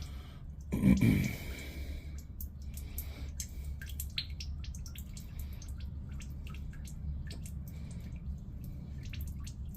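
Engine oil dripping and trickling from the oil pan drain into a drain pan, as a string of irregular sharp drips. A short loud vocal sound comes about a second in.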